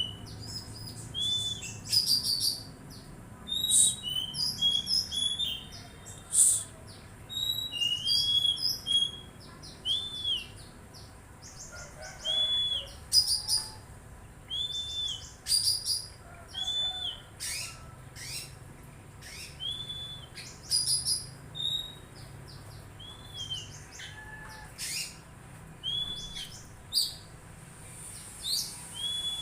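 A songbird singing a long, varied song: a short arched whistle repeated every second or two, mixed with quick high chirps and trills.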